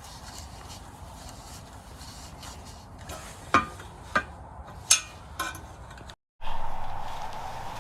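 Metal parts of a Skottle grill being handled during assembly: light handling noise, then four sharp metallic clinks in the middle. After a short break a steady hum comes in.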